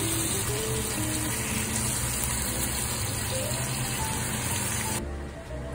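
Salmon fillets sizzling in hot oil in a frying pan, a steady spattering hiss that cuts off about five seconds in. Light background music with a simple melody plays under it.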